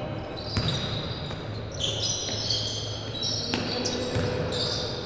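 Basketball bouncing on a gym floor a few times as it is dribbled, with short high squeaks of sneakers on the court in between.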